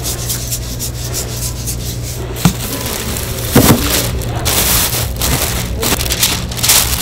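A basting brush swept quickly back and forth over glazed grilled fish, a rapid scratchy rubbing. After a sharp click and a thump about halfway through, a plastic bag rustles and crinkles as it is spread over a packing box, over a steady low hum.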